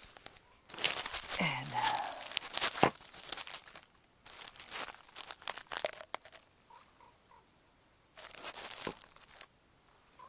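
Rustling and crinkling handling noise in three stretches, with a few sharp clicks among it.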